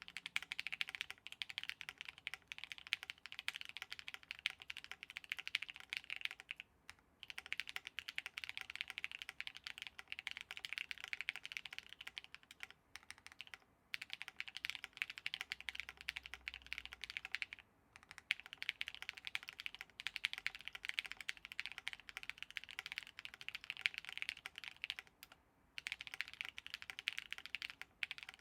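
Continuous fast typing on a Nunu FE Alice-layout mechanical keyboard with lubed Raed v2 switches on a UHMWPE plate. A dense run of keystrokes with four brief pauses.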